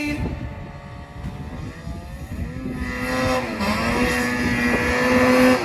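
Two-stroke snowmobile engine running and revving: its pitch sags over the first couple of seconds, climbs about halfway through, and holds high and louder near the end.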